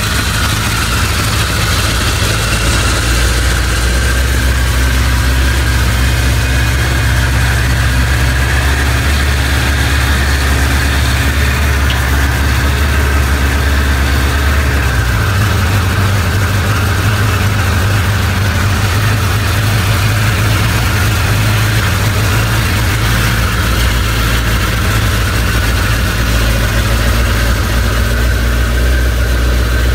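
Suzuki GSX1100S Katana's air-cooled inline-four engine idling in neutral at around 2,000 rpm, a steady even running note. Its low note changes about halfway through.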